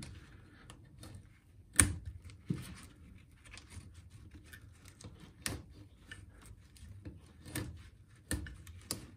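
Snap-off utility knife blade scraping and cutting into plastic packing strap, heard as scattered small scrapes and clicks, with one sharp click about two seconds in.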